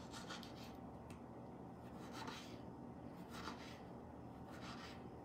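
Kitchen knife slicing through a tomato onto a wooden cutting board: faint scraping strokes, roughly one a second.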